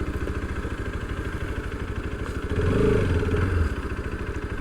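Motorcycle engine running steadily under way, with a fast even firing pulse, getting louder for about a second partway through.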